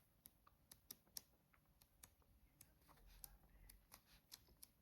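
Faint, irregular light clicks and ticks of a paper booklet being handled as its pages are turned.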